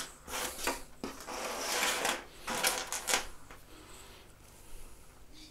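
Small plastic and metal kit parts clicking and clattering on a tabletop as they are picked up and moved. There is a stretch of rustling in the middle, and a few more clicks after it before things go quieter.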